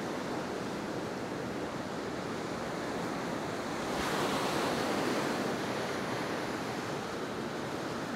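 Sea surf: waves washing in steadily with wind, one wave swelling louder about four seconds in.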